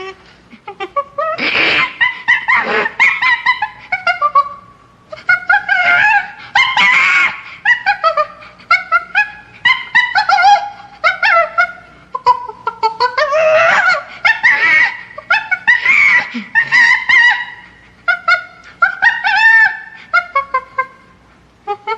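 Chimpanzee screaming in a long series of loud, high calls that rise and fall in pitch. The calls come in bouts a second or few long, separated by short pauses.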